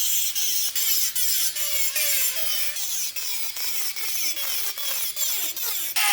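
Hand tool scraping back and forth across iron in quick, even strokes, about three a second, each stroke giving a falling metallic ring over a rasping hiss.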